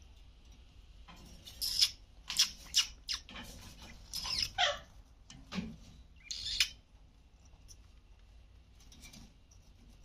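Alexandrine parrots giving a run of loud, harsh squawks for about five seconds, one call sliding down in pitch, then falling quiet.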